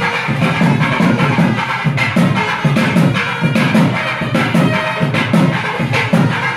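Loud music with a steady drum beat of about two to three strokes a second under a sustained melody line.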